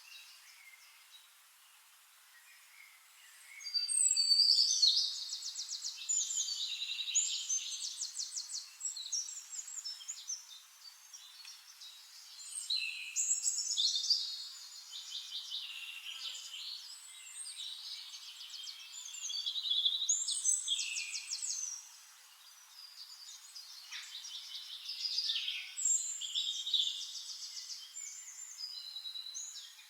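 Songbirds singing: bouts of rapid, high trills and chirps come every six to eight seconds, each lasting a few seconds, with quieter twittering in between.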